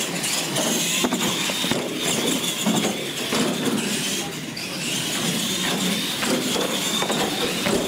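Radio-controlled monster trucks racing on a concrete floor: a high whine from their motors and gearboxes that rises and falls with the throttle, over tyre and running noise.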